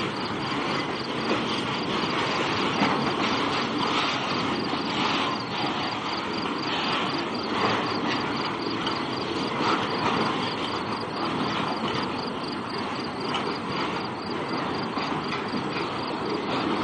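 Norfolk Southern freight train cars rolling past on the tracks: a steady rumble and clatter of steel wheels on rail.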